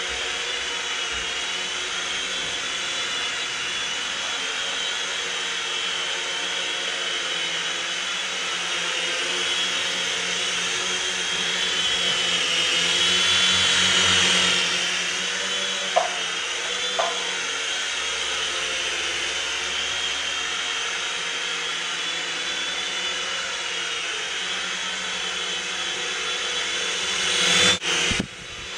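Syma S026G Mini Chinook toy helicopter's small electric motors and twin rotors whirring in a steady high whine. It swells louder a little before halfway through, with two light clicks soon after, and a brief louder surge that cuts off near the end.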